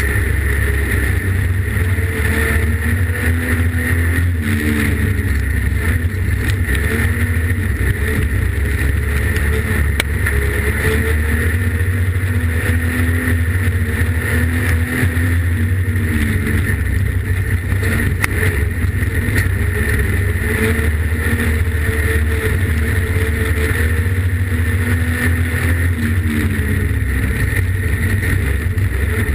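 Street stock race car's engine running hard, heard from inside the cockpit. Its note rises and falls every few seconds as the car drives through the turns and accelerates down the straights of the oval.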